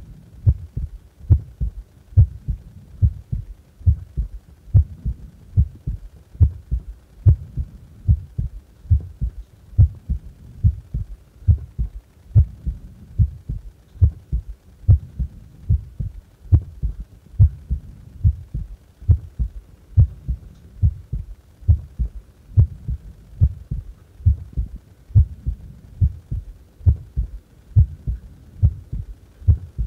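A human heart beating at rest: a steady lub-dub of low, dull thumps, a little over one beat a second.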